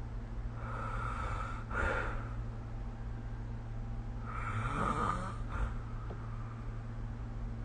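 A sleeping person snoring: short snoring breaths in the first two seconds, then a longer, louder snore in the middle with a rising buzz in its pitch, over a steady low hum.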